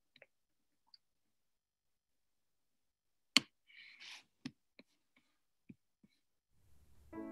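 A few scattered small clicks, with one sharp, loud click about three and a half seconds in followed by a brief soft hiss. Piano music fades in near the end.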